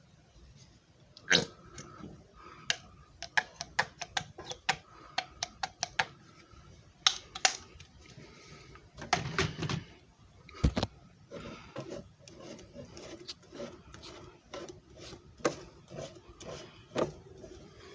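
A run of irregular sharp clicks and light knocks from a JFJ Easy Pro disc repair machine being handled. One heavier knock comes a little past halfway.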